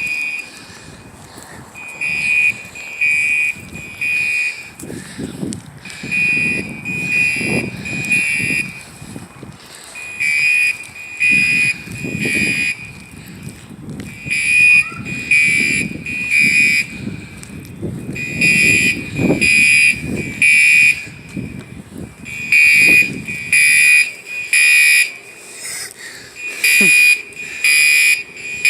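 Building fire alarm sounding the temporal-three evacuation pattern: three high-pitched beeps, a pause, then three more, repeating about every four seconds.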